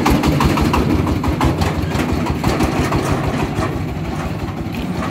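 Single-cylinder diesel engine of a công nông farm truck running with a rapid, even chug as the truck pulls away, a little fainter near the end.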